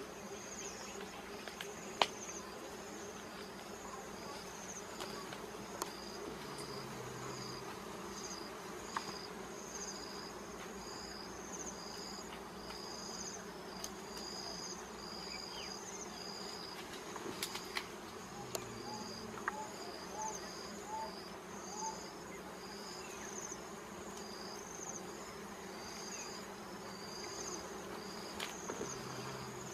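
Wild honeybees buzzing steadily around their open comb as it is smoked, with a high, evenly pulsing insect chirping over it. A few sharp clicks, the loudest about two seconds in.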